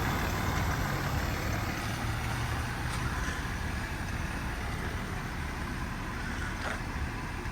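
Car engine idling: a steady low rumble, with a couple of faint clicks.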